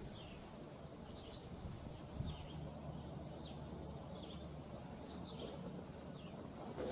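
A bird calling with short, falling chirps, roughly one a second, over outdoor background noise. A low steady hum comes in about two seconds in.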